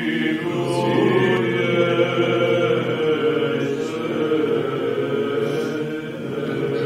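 Church choir singing a slow Orthodox chant in long held notes, with a low sustained note underneath that drops out about three seconds in.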